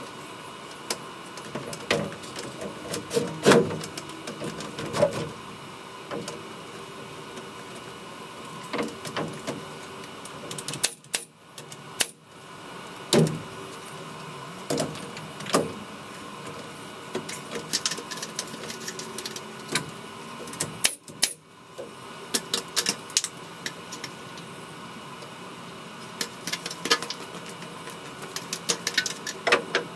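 Scattered knocks, taps and clicks of someone climbing over wooden roof trusses and a step ladder, over a steady background hiss.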